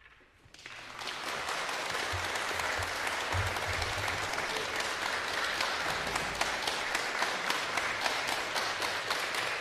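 Concert audience applauding: the clapping breaks out about half a second in, right after the final notes have died away, and swells within a second to steady, full applause.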